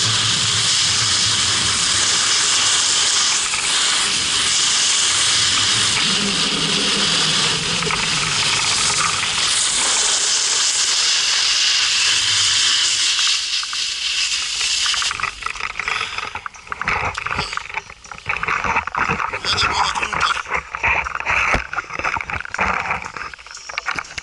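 Steady rush of wind over an action camera's microphone, with a snowboard sliding on groomed snow, at speed. About fifteen seconds in the steady rush breaks up into uneven scraping and crunching as the board slows.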